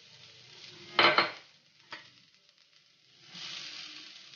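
Chopped onion and vegetables sizzling in a frying pan as they are stirred, with a loud clatter of the stirring spoon against the pan about a second in and a lighter tap near two seconds.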